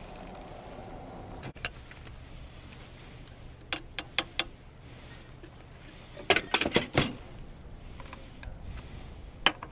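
Motorcycle keys clicking and jangling as they are handled at the ignition and the fuel-tank cap lock. A few light clicks come about four seconds in, a louder rattle of clicks around six to seven seconds, and one more click near the end.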